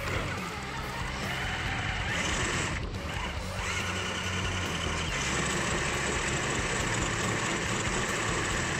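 Small electric motors and geared drivetrains of radio-controlled rock crawlers whining steadily as the trucks drive over dirt and rock.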